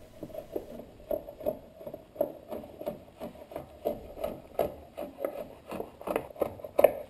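Wood River chisel plane paring dried glue squeeze-out off a glued-up wooden panel, its steel blade scraping along the seams in short, quick strokes, about two or three a second.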